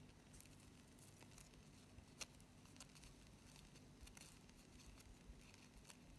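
Near silence with faint, scattered scratches and ticks as a thin metal tool draws lengthwise vein lines into a satin ribbon leaf.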